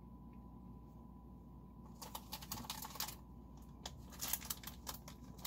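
Close-up chewing of a buttery powdered-sugar shortbread cookie, heard as irregular runs of quick wet mouth clicks and smacks that start about two seconds in.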